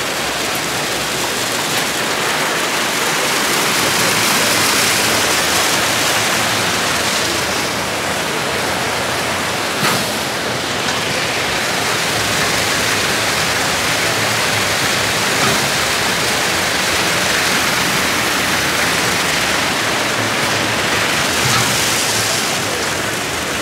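Rotating brushes of a rollover car wash machine spinning and swishing against a car, a steady rushing noise. The machine is running its wash cycle.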